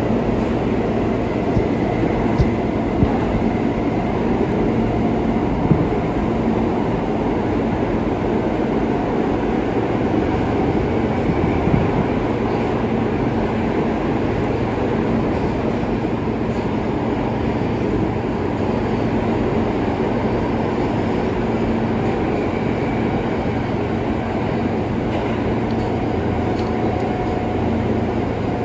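R143 subway car running at steady speed, with a continuous rumble of wheels on rail and a steady hum. A few sharp clicks come in the first dozen seconds.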